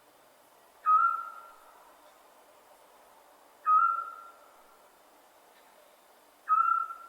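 Scops owl calling: three short, single whistled notes evenly spaced about three seconds apart, each a clear mid-pitched whistle that fades quickly.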